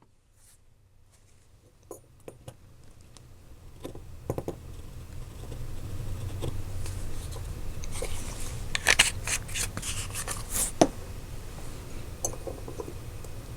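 Small clicks, taps and scrapes of hands working the wheels and axles of a 1/64 diecast model car while gluing the axles in, busiest past the middle, over a low hum that comes in a few seconds in.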